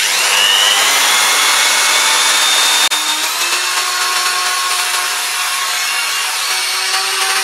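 Cordless drill running steadily with a 10 mm bit grinding into the base of a ceramic pot, the bit kept wet by a water-soaked sponge pressed against it.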